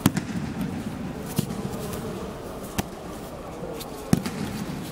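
Aikido breakfalls: bodies and palms slapping the tatami mats in four sharp slaps, about one every second and a quarter, over a low background hubbub.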